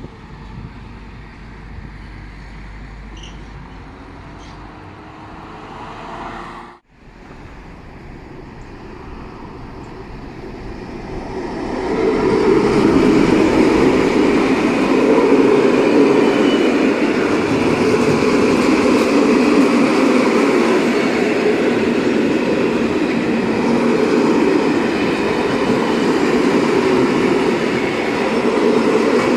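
Freight trains passing. First a container train rolls by farther off with a moderate steady rumble, which cuts off abruptly about seven seconds in. From about twelve seconds a long train of open-top freight wagons passes close by, a loud steady rumble and rattle of wheels on rails.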